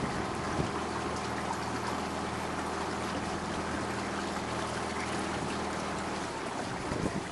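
A small boat's motor hums steadily under the rush and trickle of water along the hull, and the motor cuts off about six seconds in.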